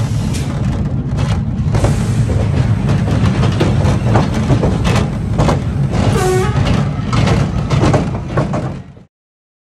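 Steel roller coaster train rolling along its track: a steady low rumble of the wheels with rattling knocks and clatter. It cuts off suddenly near the end.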